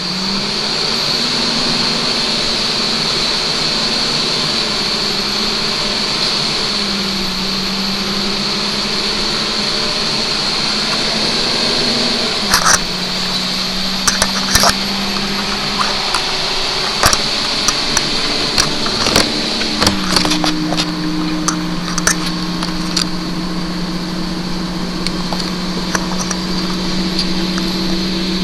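Motor vehicle engine running steadily, its pitch dropping noticeably about halfway through and again about two-thirds of the way through. Scattered sharp clicks in the second half.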